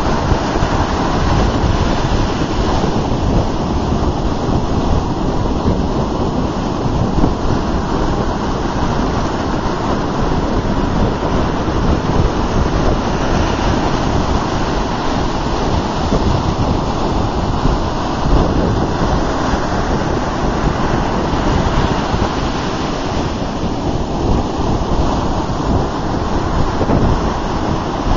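Ocean surf breaking close in and washing up the sand: a loud, unbroken rush of water noise.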